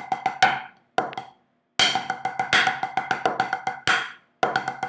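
Wooden drumsticks striking a practice pad in a five stroke paradiddle rudiment: a few strokes, a short pause, then a fast run of even strokes that stops about four seconds in.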